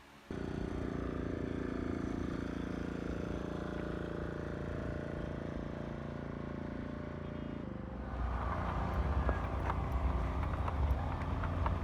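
Steady vehicle engine and road noise. About eight seconds in it turns to a louder, rougher low rumble with scattered clicks and knocks.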